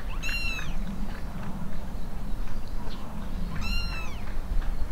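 A young kitten mewing twice, high-pitched cries that rise and fall in pitch, one near the start and one about three and a half seconds in, over a low steady rumble.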